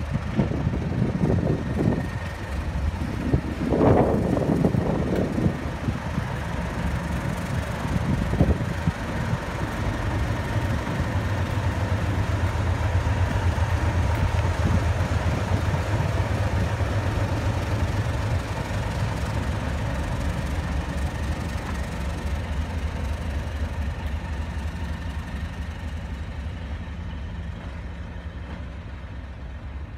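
Class 37 diesel locomotive D6729 (English Electric V12 engine) running slowly past, its engine hum low and steady. Irregular low rumbles in the first several seconds; the engine sound fades toward the end.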